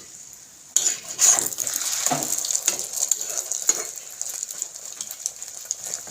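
Egg frying in hot oil in a pan: a loud sizzle starts suddenly about a second in and carries on, with a utensil scraping and tapping against the pan.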